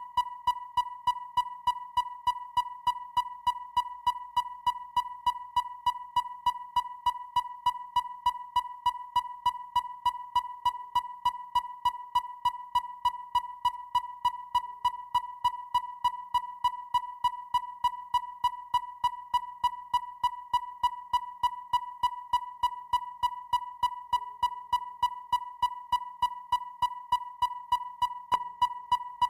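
Electronic depth finder (echo sounder): a steady high beep near 1 kHz, pulsed by sharp, evenly spaced clicks several times a second with no change in pace.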